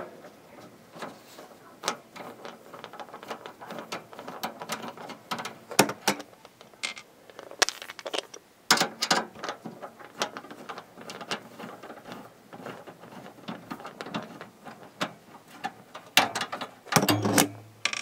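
Screwdriver turning Torx screws out of a desktop computer's metal hard-drive cage: a run of irregular small clicks and metallic ticks, with a few louder knocks and handling noises.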